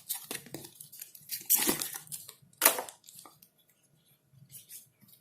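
Packaging rustling and crinkling as a small item is unwrapped by hand, in irregular handling noises with a couple of louder crinkles near the middle, then dying away.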